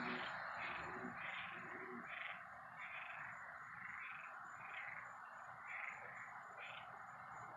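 Faint night chorus of frogs and insects, a soft pulsing call repeating about once every three-quarters of a second.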